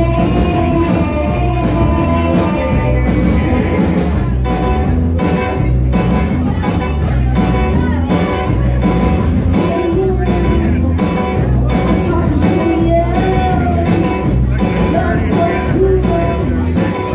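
Live rock-and-roll band playing: electric guitars and drums on a steady beat, with a woman singing lead in the second half.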